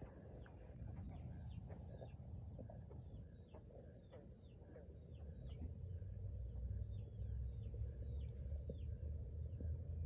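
Frogs calling: short chirps that fall in pitch, repeating about two a second, over a steady high whine and a low rumble.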